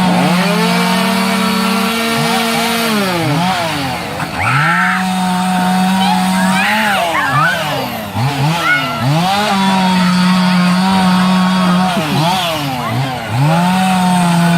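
Chainsaw engine revved again and again: held at high revs for two or three seconds at a time, dropping back between bursts and quickly climbing again.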